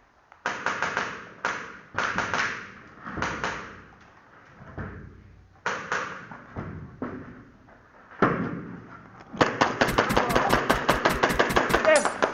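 Airsoft gun firing several short bursts of sharp shots, then a fast string of shots at about five or six a second for the last three seconds.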